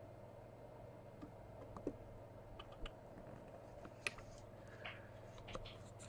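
Faint, scattered light clicks and taps, about a dozen in six seconds, over a steady low electrical hum.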